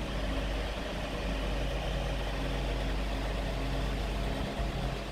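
Steady low machine hum with a few steady tones in it, like a running motor or engine, easing slightly near the end.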